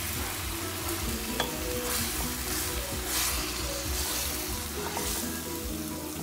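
Tomato and pepper sauce sizzling in a metal pan while a spatula stirs and scrapes through it, with a steady hiss.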